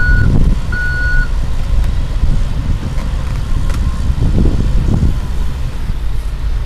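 Caterpillar 325C excavator travelling on its steel tracks: its travel alarm beeps twice in the first second, over a loud low diesel rumble, with a few sharp clanks from the tracks later on.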